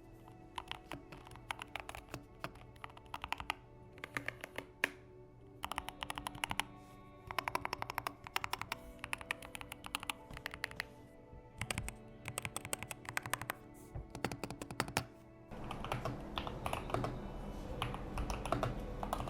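Typing on a Keychron K2 HE keyboard with magnetic Hall-effect switches: bursts of fast key clacks broken by short pauses. A steady hiss joins the typing about three-quarters of the way through.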